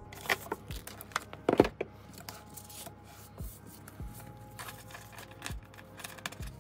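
Clear plastic binder pages and sleeves being handled: scattered rustles, crinkles and light taps, the loudest about a second and a half in.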